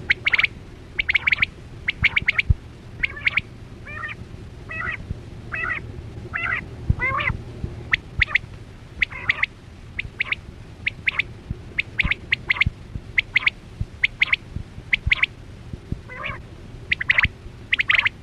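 Quail calling over and over, short sharp notes in quick groups of three or four, repeating about once a second.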